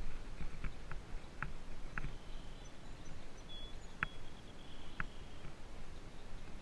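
Off-road bicycle riding heard through a helmet-mounted GoPro: a low rumble from rolling over a dirt track and grass field, with scattered clicks and rattles as the bike goes over bumps.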